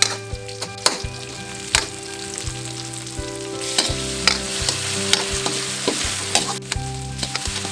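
Pork belly chunks and freshly added yardlong beans sizzling in hot oil in a metal wok, with a metal spatula scraping and clicking against the pan as they are stir-fried. The sizzle grows louder about halfway through.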